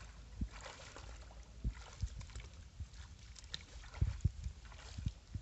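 Bare feet wading through shallow muddy water: irregular splashing steps, each with a low thud.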